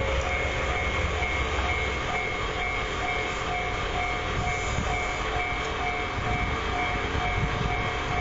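Japanese level-crossing warning bell ringing in an even repeating pattern, close to two strikes a second, over the rumble of a DE10 diesel locomotive moving passenger coaches. The deep rumble eases about two seconds in.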